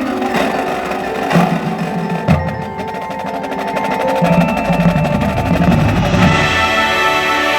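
A marching band plays. The percussion section gives a few sharp hits, then a low drum roll that swells, and the brass comes in about six seconds in.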